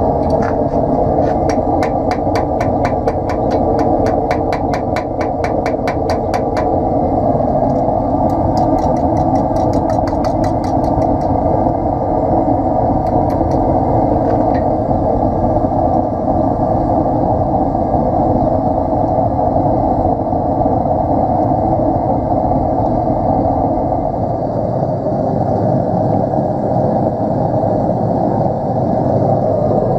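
Forge running with a steady roar while a hammer taps the steel striker on the anvil in quick light strokes, about four or five a second. There are two runs of taps, one from about a second in to six seconds, and a shorter one starting around eight seconds.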